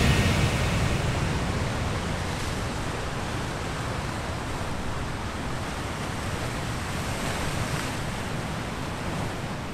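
Ocean waves breaking and washing over a rocky shore: a steady rushing of surf that slowly grows quieter.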